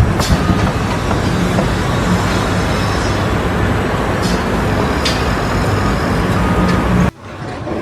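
Steady engine noise with a low hum and a few short knocks, cutting off abruptly about seven seconds in.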